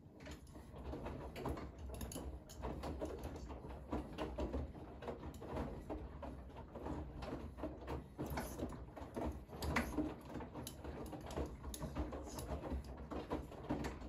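Bosch front-loading washing machine drum turning a wet load of laundry: a low motor hum under a steady stream of soft knocks and clicks as the clothes tumble.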